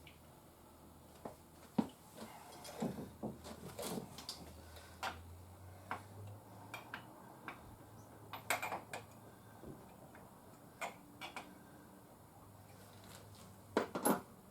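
Irregular knocks, clicks and clinks of hard objects being handled, with a faint low hum underneath; the loudest cluster comes near the end.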